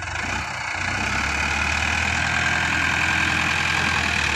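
Mahindra Arjun Novo 605 DI tractor's diesel engine running under load as it moves a trailer loaded with soil. It grows louder through the first second and then holds steady, with a high whine over the engine note.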